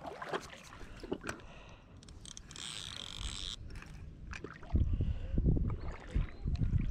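Clicks and rattles from a telescopic rod and spinning reel being handled while the line is snagged on a log, with a brief high buzz about two and a half seconds in. From about five seconds in, wind rumbles loudly on the microphone.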